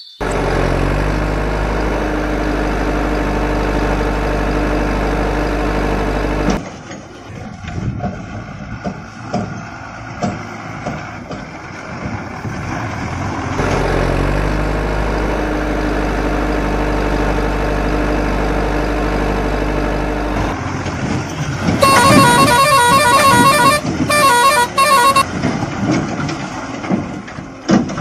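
Electronic truck sound effects: a steady engine hum that plays for about seven seconds, stops, and repeats the same way, with irregular clicks and splashes between. Near the end comes a pulsing, beeping horn tune lasting about three seconds.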